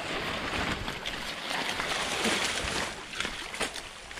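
Water sloshing and splashing as a drag net is hauled through shallow water, with scattered sharper splashes.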